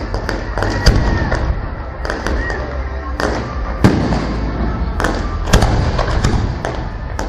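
Aerial fireworks going off in quick succession: many sharp bangs and crackles over a low rumble. The loudest bangs come about one second, four seconds and five and a half seconds in.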